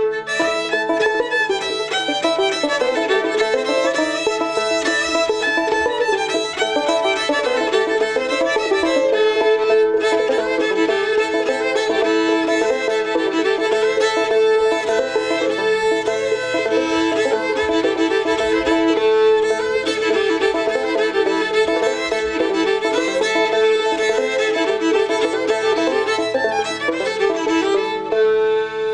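Old-time fiddle tune played over a steady low drone, its notes running busily throughout, ending on a held note that dies away.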